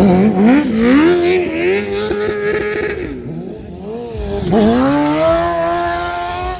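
Stunt motorcycle engine revving hard, its pitch swinging up and down for a few seconds, dipping, then climbing steadily in one long rising rev near the end.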